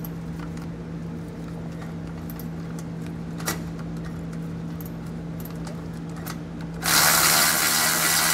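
Cordless ratchet set on a 10 mm bolt at the axle's leaf spring perch; about seven seconds in its motor starts and runs loudly and steadily, spinning the bolt out. Before that there is only a low steady hum with a few faint clicks.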